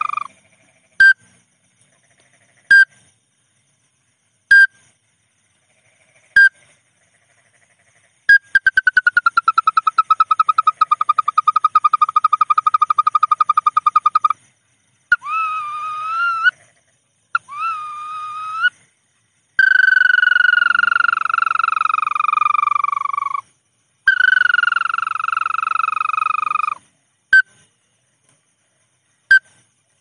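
Lure-call recording of the bawangan paddy-field bird: single short chirps about every two seconds, then a long, fast-pulsing trill, two short warbled phrases, and two long falling whistled calls, after which the short chirps resume.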